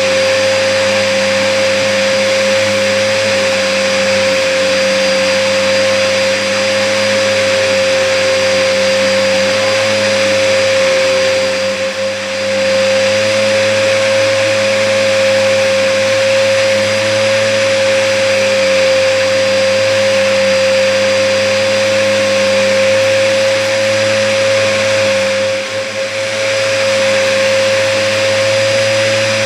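Hoover upright vacuum cleaner running steadily with a strong steady motor whine, dipping briefly in loudness twice. The vacuum is clogged.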